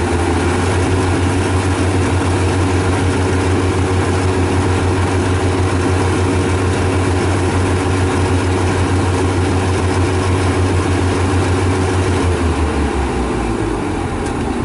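Yanmar AW82V rice combine harvester's diesel engine running steadily while the machine cuts rice, a continuous loud drone with a deep hum that fades about twelve seconds in.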